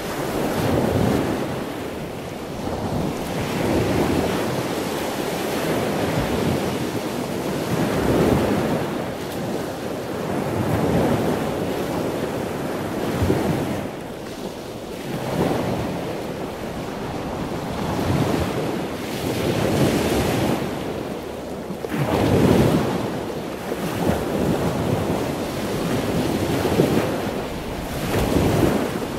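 Choppy sea water rushing and splashing past the hull of a moving boat, with wind buffeting the microphone. The noise swells and eases every few seconds.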